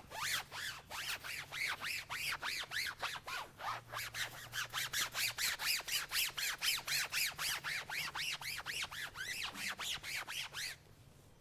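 Foam applicator rubbed quickly back and forth over a vinyl convertible top as black-top gel is worked in: an even run of short scuffing strokes, about five a second, that stops abruptly near the end.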